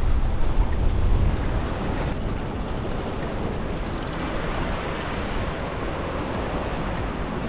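Sea waves washing against a rocky shore as a steady wash of noise, with wind buffeting the microphone, heaviest in the first second or so.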